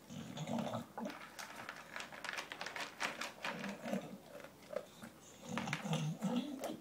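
English bulldog eating dry kibble from a plastic tray: a dense run of crunches and clicks from about a second and a half in, with low snorting breaths between mouthfuls near the start and the end.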